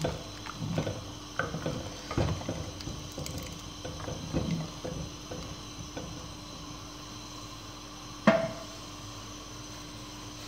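Wooden spoon stirring thick, fully cooked moong dal in a clay pot, with irregular soft knocks and scrapes against the pot for the first six seconds or so. One sharp knock about eight seconds in.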